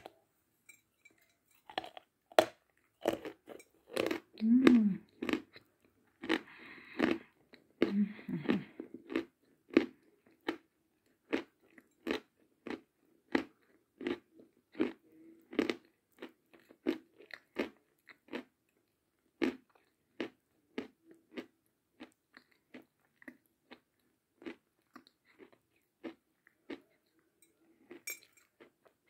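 Close-miked biting and chewing of a block of chalk: dense, sharp crunches for the first ten seconds with two brief low hums among them, then steady chewing crunches about one to two a second that thin out near the end.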